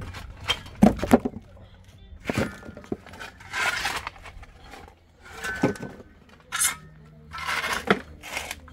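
Handling noise: irregular knocks and clinks, with short scraping sounds in between.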